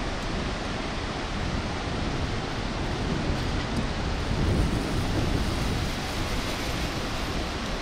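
Wind buffeting the microphone over a steady rush of noise from the Bhote Koshi river rapids far below.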